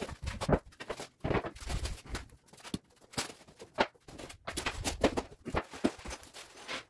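Plastic packaging sheet rustling and crinkling as flat-pack cabinet parts are unpacked, with footsteps and light knocks as the parts are handled.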